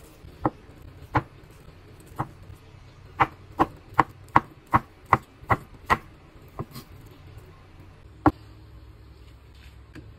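Chef's knife cutting through a block of luncheon meat and knocking on a wooden cutting board: a few spaced chops, then a quick run of about eight chops, roughly three a second, from about three to six seconds in, then a few more single knocks.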